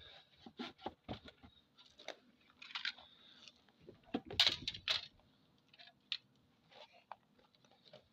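Irregular short scraping and rubbing strokes on cedar wood, with a few sharper crackles about halfway through.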